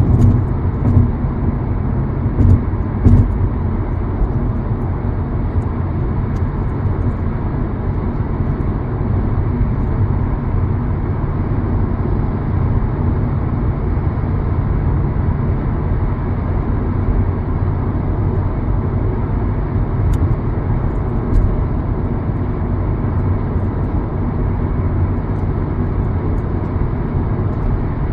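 Steady low rumble of a vehicle running, with a few short knocks in the first few seconds.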